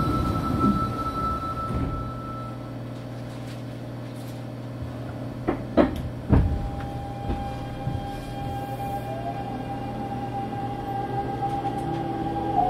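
Inside a Fukuoka City Subway 2000 series car at a station stop: the doors shut with a few sharp clunks about halfway through, then the traction motors start a steady whine that begins rising in pitch as the train pulls away.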